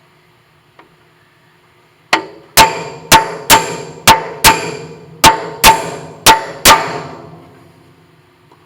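About ten hammer blows on a large aluminum block, each with a short metallic ring, driving the lathe's speed gear selector shaft home into its bearing and gear. The blows come roughly two a second, partly in pairs, starting about two seconds in and stopping about seven seconds in.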